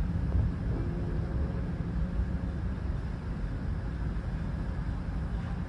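Steady low rumble heard from the deck of a cruise ship under way, the ship's running noise mixed with air moving over the microphone.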